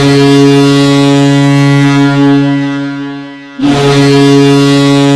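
Ice hockey goal horn sounding two long, loud, low-pitched blasts. The first fades out about three seconds in, and the second starts about half a second later.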